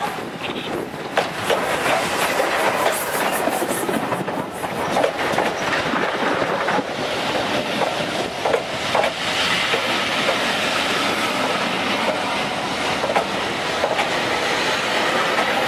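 Railway coaches rolling past close by, their wheels clicking over the rail joints in a steady rumble.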